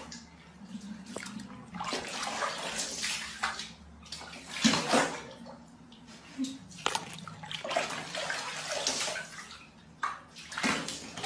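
Water splashing and running in irregular surges.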